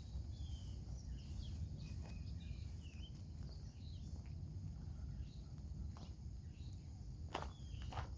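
Small birds chirping here and there in short calls over a steady low outdoor rumble. A couple of sharp knocks, like footsteps, come near the end.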